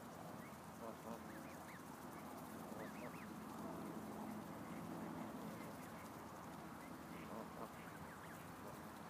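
Canada goose goslings peeping: short, high, arched calls now and then, several in quick succession in the first few seconds, over a faint steady low hum.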